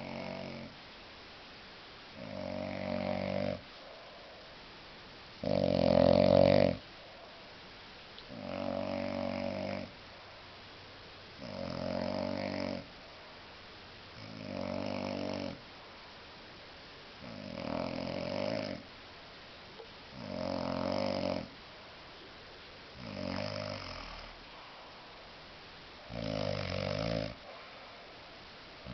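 A very drunk man snoring in his sleep: a rough snore about every three seconds, each lasting about a second, with quiet breaths between. The snore about six seconds in is the loudest.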